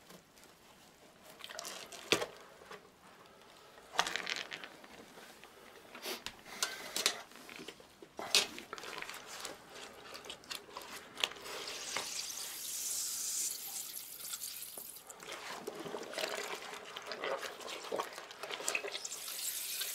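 Hands squeezing and kneading a cloth bag of fermented wheat-flour mash in a stainless steel pot: irregular wet squelches and slaps, then steadier sloshing and trickling of liquid from about halfway through as the mash is wrung out of the bag.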